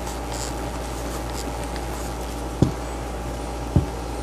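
Two short plastic clicks, about two and a half seconds in and again near the end, as the camping lantern's plastic housing is handled and worked apart, over a steady background hum and hiss.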